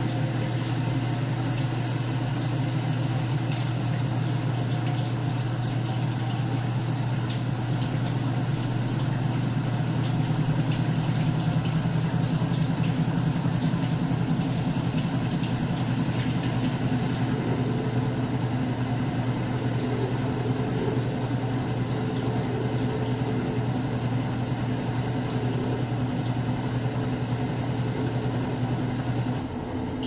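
General Electric Spacemaker portable washing machine (model WWP2050SAXWH) in its spin cycle: the motor runs and the tub spins with a steady low hum, while the drain pump pumps out the water. About a second before the end the sound changes suddenly to a quieter one.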